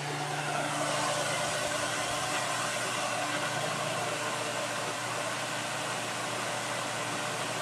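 Holmes Blizzard 9-inch table fan (model HAOF90) running on its high setting without oscillation: a steady, loud rush of air with a low motor hum.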